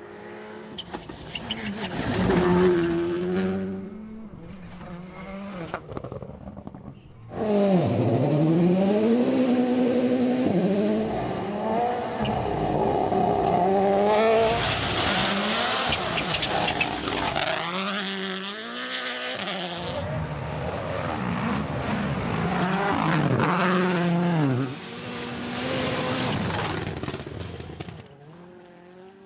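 Rally cars driven flat out past the microphone, one after another, engines revving up and dropping back sharply with each gear change, with some tyre noise.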